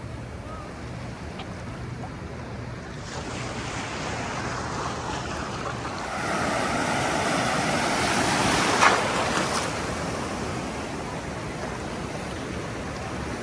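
Ocean surf washing in around the microphone. The wash swells after a few seconds, is loudest with a sharp splash near the middle, then eases back.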